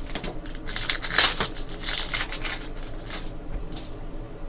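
Trading cards being handled and slid against one another, a quick run of papery rustles and flicks that is densest about a second in.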